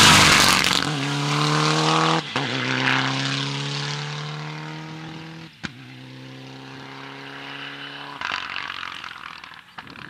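A rally car passes close at full speed, then its engine fades away holding a steady note. There is a sharp crack at each gear change, about two seconds and five and a half seconds in. A rougher, noisier engine sound comes in near the end.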